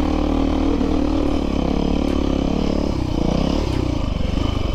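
Dirt bike engine running under way at fairly steady revs, the revs dipping and picking back up about three seconds in.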